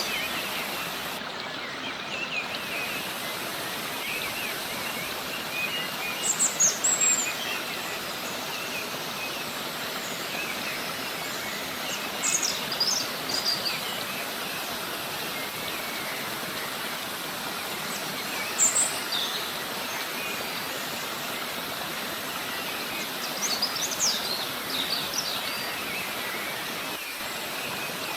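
Steady rush of a river cascade, with small birds chirping in short bursts about four times over it.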